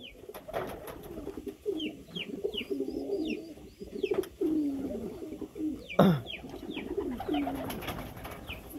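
Domestic pigeons cooing over and over, low rolling coos overlapping with a few short high chirps. A sharp knock comes about six seconds in, and wings flap near the end.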